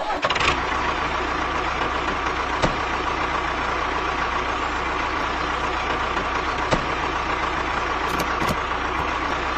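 Engine idling steadily, with a few light clicks.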